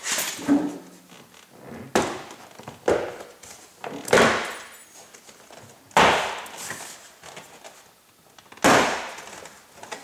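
Plastic retaining clips of a 2002 Honda CR-V front door trim panel popping out of the door one after another as the panel is pulled off by hand: about six sharp snaps a second or two apart, with the panel rustling between them.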